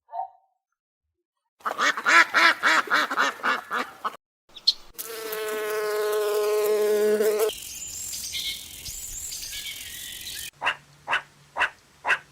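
A string of different animal calls cut one after another: a fast run of short pitched calls, then one long drawn call, then a series of short calls about two or three a second.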